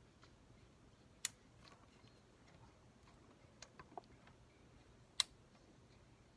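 A few isolated sharp clicks in a quiet room, the loudest about a second in and about five seconds in, with fainter ticks between: a light's switch being pressed again and again as the light fails to come back on.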